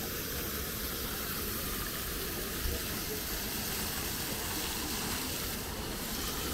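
Fountain jets spraying and splashing into a stone basin: a steady hiss of falling water.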